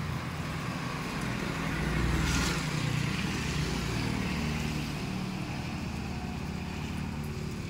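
A motor vehicle engine running steadily at a low hum under a steady hiss of rain, growing louder for a couple of seconds from about two seconds in, with a short burst of hiss at that point.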